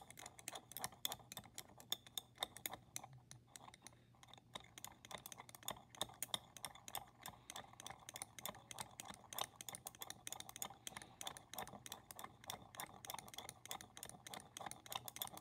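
Glass stirring rod clicking rapidly and irregularly against the inside of a glass test tube while stirring, with light, sharp ticks several times a second; this is the stirring that dissolves black copper(II) oxide in 6 M hydrochloric acid.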